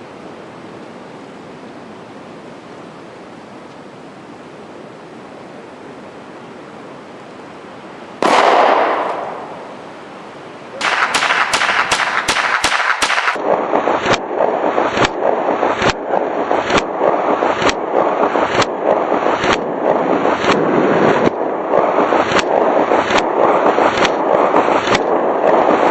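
Steady open-air hiss for about eight seconds, then a single semi-automatic gunshot that rings off. A quick string of about seven shots follows, then steady fire at roughly one and a half shots a second.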